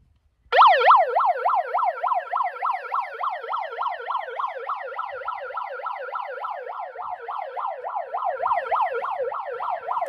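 Handheld megaphone's built-in siren sounding, a loud fast yelp that rises and falls about four times a second, switched on about half a second in.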